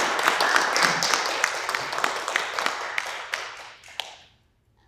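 Audience applauding, a dense patter of many hands clapping that thins out and dies away just after four seconds in.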